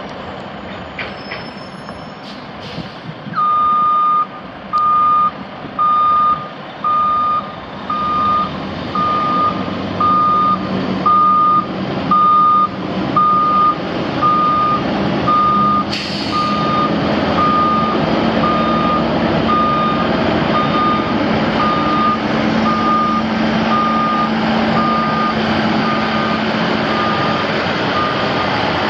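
Backup alarm on a Sterling L9500 crane truck beeping about once a second, one steady pitch, over the truck's Detroit Diesel Series 60 six-cylinder diesel running, which means the truck is in reverse. About sixteen seconds in there is a short hiss of air, and the engine grows louder as it takes load.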